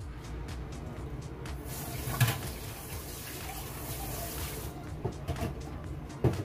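Braising liquid simmering and bubbling in a wok under a stainless-steel lid, a steady watery sizzle with small pops. A sharp tap comes about two seconds in and another near the end.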